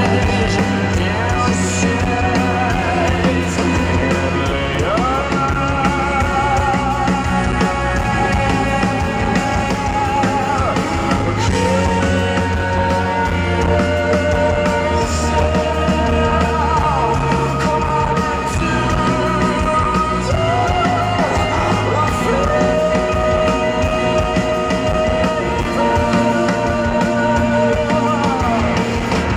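Live rock band in concert: a singer holding long, wavering notes that slide from one pitch to the next, over electric guitar, bass and drums.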